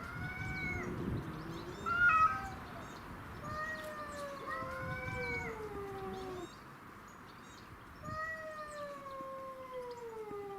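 Cat meowing: several long, drawn-out meows that arch and then slide slowly down in pitch, with a short, sharp, louder cry about two seconds in.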